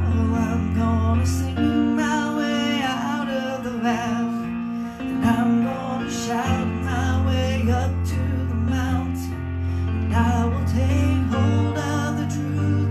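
A woman sings a slow song with vibrato over sustained electric keyboard chords.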